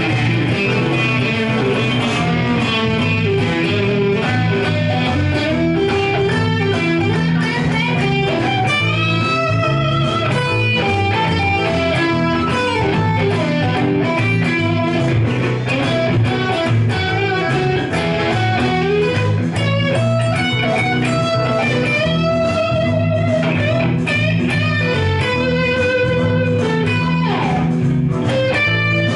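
Electric guitar, a Stratocaster-style solid-body, played through an Egnater amplifier, improvising blues lead lines with bent notes and vibrato.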